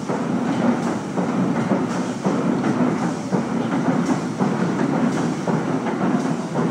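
Running noise of a radio-controlled model tugboat under way while towing, picked up by a camera on its deck: a steady, uneven rumble and clatter with a loose rhythm.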